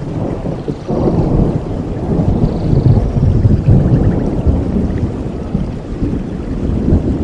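Rain falling, with a long low rumble of thunder that swells about a second in and rolls on.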